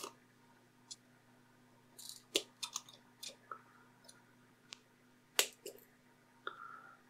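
Scattered faint clicks and light scrapes of a scalpel point levering a small curved metal retaining clip out of a plastic screwdriver body. The clicks come in a short run a couple of seconds in and again once or twice near the end, when tweezers close on the clip.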